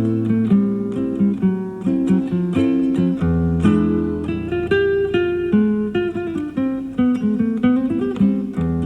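Nylon-string classical guitar played fingerstyle: a steady run of plucked melody notes over held low bass notes, from an old FM broadcast recorded on cassette tape, with dull, rolled-off highs.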